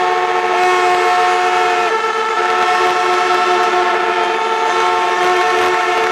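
A stadium crowd blowing many fans' horns, several long held notes at different pitches overlapping, dropping out and coming back, over a haze of crowd cheering.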